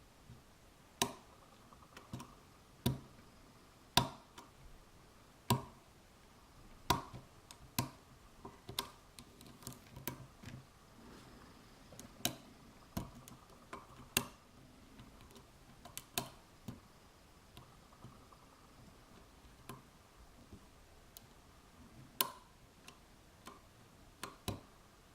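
A metal lock pick working the pins of a FAC pin tumbler lock, single-pin picking: sharp, irregular small clicks about once every second or so.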